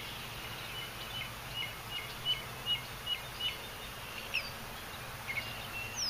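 Birds chirping outdoors: a quick run of short, repeated high chirps, then a few scattered thinner notes, over a steady low outdoor hum and hiss.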